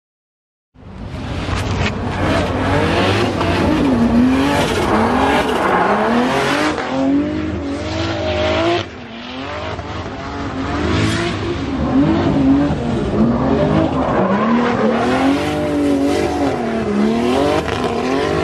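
Drift car sliding on track: the engine revs up and down again and again as the throttle is worked, over loud tyre noise from spinning, smoking rear tyres. The sound starts abruptly under a second in, drops sharply about nine seconds in, then builds again.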